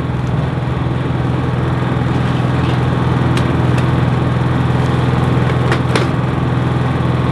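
Honda EU3000is inverter generator's single-cylinder engine running steadily with an even hum. A few short clicks about midway and near the end.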